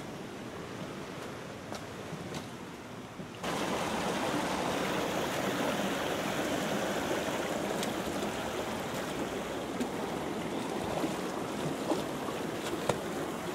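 Stream water rushing over rocks: fainter at first, then suddenly much louder about three and a half seconds in, as if heard right at the water. A few splashing steps wading through the shallow stream near the end.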